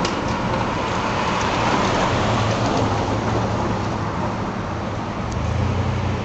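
Vehicle noise on a city street: a steady rumble with road hiss that swells twice as traffic goes by.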